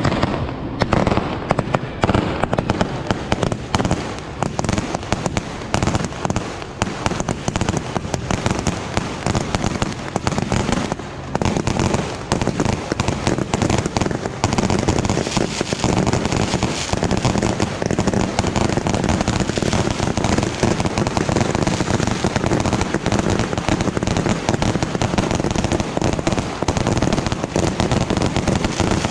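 A dense, continuous barrage of bottle rockets and firecrackers from a Yanshui beehive fireworks launch, with countless sharp pops and bangs overlapping into a steady crackling din that briefly slackens about eleven seconds in.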